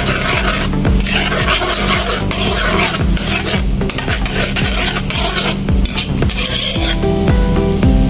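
A metal spoon stirring and scraping melted butter as it sizzles and foams in a wok, in repeated strokes against the pan. Music comes in near the end.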